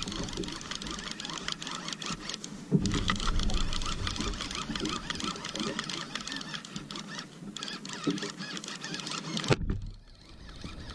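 Fishing reel being cranked to bring in a hooked fish, a fast clicking whir in three bouts with short pauses about two seconds in and about seven seconds in, cutting off suddenly near the end. Water sloshes against the kayak's hull underneath.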